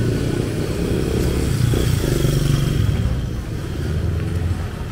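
A motor vehicle's engine running close by, swelling in the middle and easing off in the second half, like a vehicle passing on the street.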